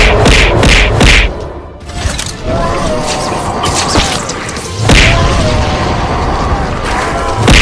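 Cartoon fight sound effects over background music: a quick run of punch hits in the first second and a half, then a heavy booming impact about five seconds in.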